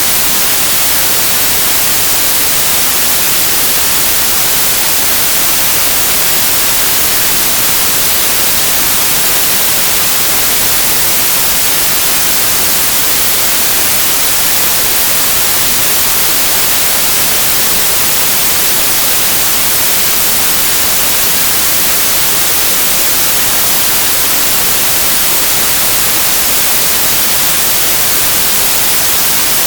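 Steady, even white-noise hiss, strongest in the high end, with no change in level or texture.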